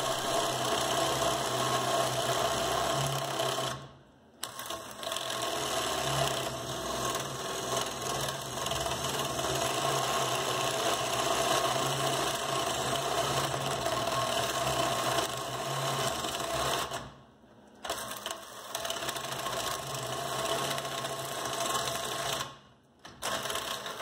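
Hercules 12-volt cordless screwdriver's motor whining under heavy load as it drives an inch-and-a-half spade bit through thick wood, the bit cutting and grinding. The motor stops briefly three times, then picks up again.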